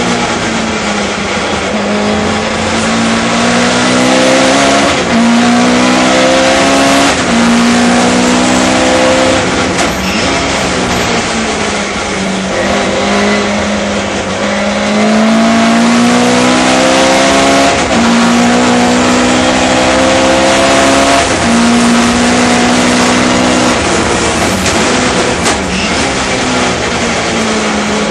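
Sunbeam Lotus race car's 2.2-litre four-cylinder engine at racing speed, heard from inside the car. Its pitch climbs in each gear and drops sharply at each gear change, every two to four seconds.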